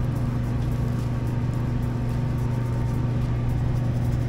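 Steady low hum of a ship's machinery: a deep, even drone with a fainter overtone above it.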